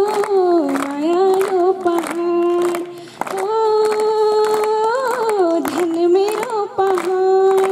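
A girl singing a Pahari folk song unaccompanied, holding long drawn-out notes with sliding turns between them and a brief pause for breath about three seconds in.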